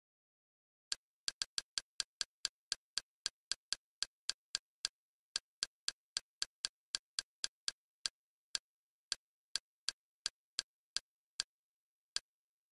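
Kodi's menu navigation sound: a short, identical click for each step as the highlight moves down a file list, about three or four a second in runs with brief pauses, starting about a second in.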